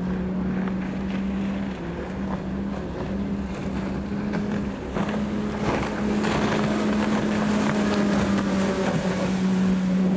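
Mercury Verado 250 Pro outboard driving a Phantom 23XL race boat at high speed: a steady engine drone that breaks off briefly about 2 and 5 seconds in. From about halfway a hiss of spray and water grows louder as the boat comes close.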